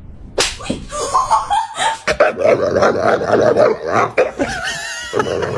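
A series of sharp smacks mixed with laughing voices.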